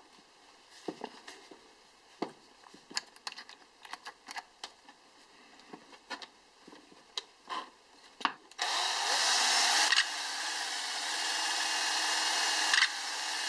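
A series of small clicks and taps while a wooden handle is fitted into a cordless drill's chuck. Then, about two-thirds of the way in, the cordless drill starts and runs steadily, spinning the handle against a cloth held in the hand to polish it.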